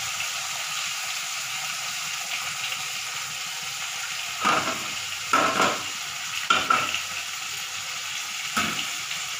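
Tomato, green chilli and spice masala sizzling steadily in hot mustard oil in a steel kadai, freshly dosed with turmeric, chilli powder, salt and sugar. About halfway through, a steel spatula scrapes and stirs it in four or five short strokes.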